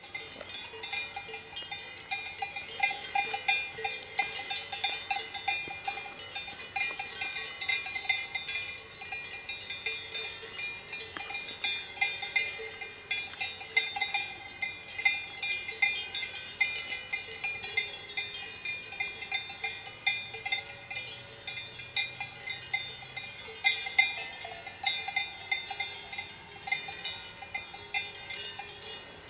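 Swiss cowbells on a herd of grazing cows, clanking irregularly and overlapping in a continuous jangle of several different pitches.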